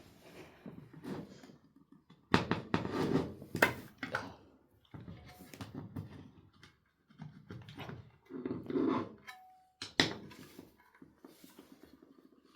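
A hard drive's metal cover being pried at with a tool: irregular scraping and handling noise with several sharp metallic clicks, and a brief squeak near the end.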